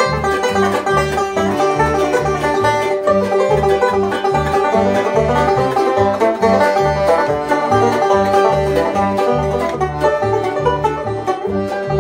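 Live bluegrass band playing an instrumental passage: a resonator banjo picking fast, bright rolls in the lead over an upright bass, guitar and the held chords of a piano accordion, at a steady lively tempo.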